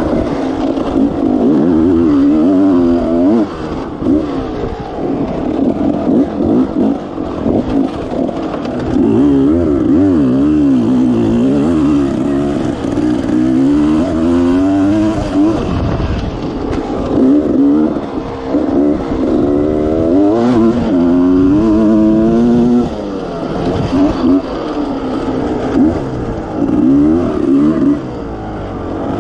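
Enduro motorcycle engine under hard throttle, its pitch climbing and falling over and over as the rider works the throttle, with brief drops in loudness as he backs off.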